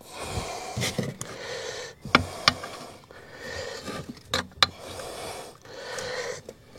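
Scooter tyre being levered onto its rim by hand with tyre levers: rubber bead rubbing and scraping against the rim, with a few sharp knocks of the levers.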